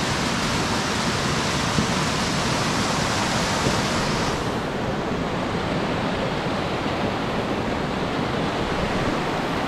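Steady loud rush of fast-flowing mountain stream water. About halfway through, the bright hiss drops away suddenly and a duller rush remains.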